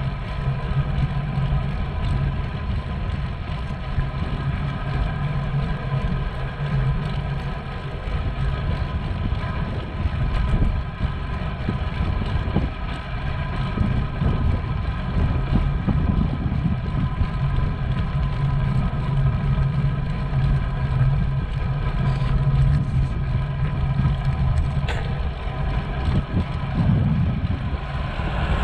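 Wind buffeting the microphone of a camera on a moving bicycle, a loud fluctuating rumble, with a steady hum under it.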